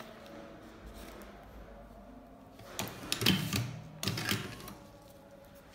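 Electric motor of a Prof Matic T3 cigarette injector machine running its stroke in two short bursts, about three seconds and four seconds in, as the plunger pushes loose tobacco into a filter tube.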